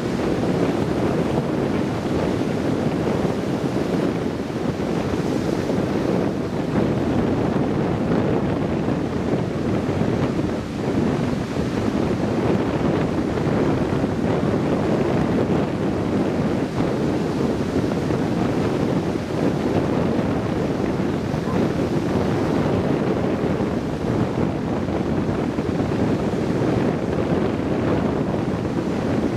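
Heavy hurricane surf breaking and washing over the shore, a steady, dense wash of noise, with wind buffeting the microphone.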